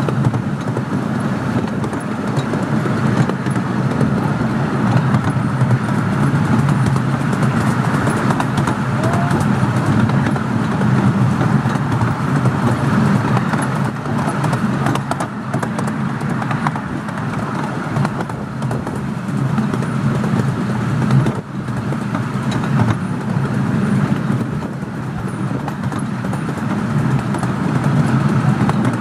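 Steady rumble and clatter of a 10¼-inch gauge miniature steam train running along the track, heard from a passenger car behind its 4-6-2 steam locomotive, with a brief dip about two-thirds of the way through.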